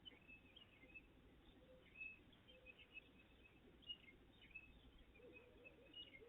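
Faint outdoor birdsong: many short chirps and brief whistles from several small birds, over a low background hiss.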